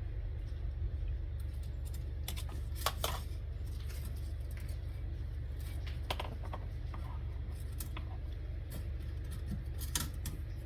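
Scattered light clicks and scrapes of an engine oil dipstick being pulled from its tube and pushed back in to check the oil level, over a steady low hum.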